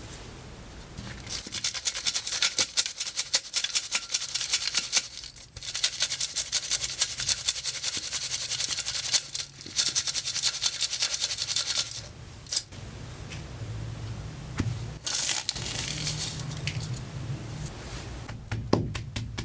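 Blocks of coloured gym chalk being crushed into powder: dense, gritty crackling and crunching in long runs, with short breaks and a shorter burst later on. A run of regular clicks starts near the end.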